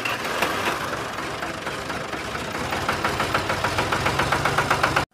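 Engine idling with an even, rhythmic knock of about five beats a second, clearer in the second half.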